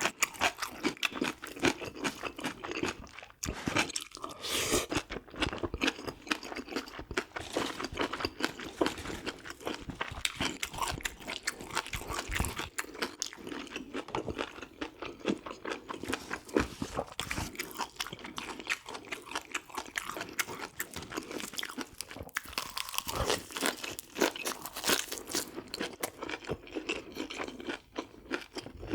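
Close-miked chewing and crunching of spicy braised pork ribs with bean sprouts, a dense run of irregular crunchy clicks.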